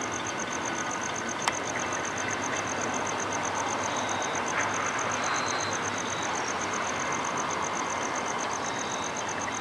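Steady rumble of distant vehicles, with a fast, even, high-pitched pulsing running through it and one sharp click about one and a half seconds in.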